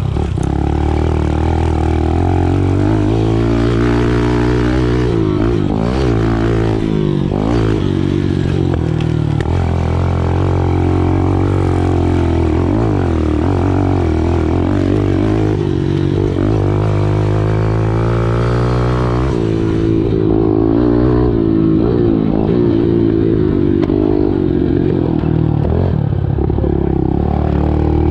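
Small 110cc pit bike engine being ridden, revving up and down over and over as the throttle is opened and closed.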